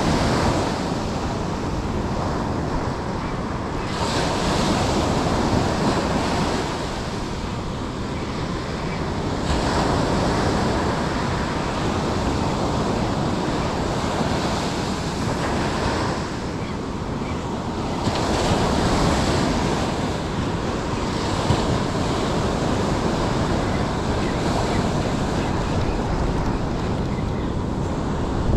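Surf breaking and washing up a sandy beach, swelling in surges every few seconds, with wind rumbling on the microphone.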